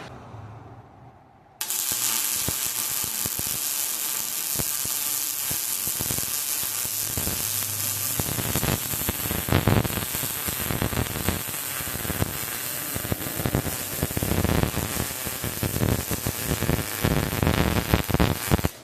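Electric welding arc sizzling and crackling steadily as one long bead is run, striking abruptly about a second and a half in and cutting off sharply just before the end.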